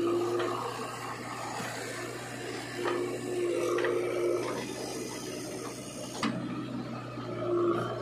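Diesel engine of heavy earth-moving machinery running with a steady drone. A higher whine rises over it in spells as the machine works, and a single sharp knock comes about six seconds in.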